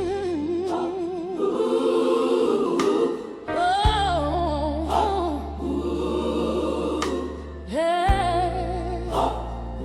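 Gospel music with wordless singing: a voice or choir holds and bends long notes with vibrato over sustained bass, with the bass chord changing about four seconds in and again near eight seconds.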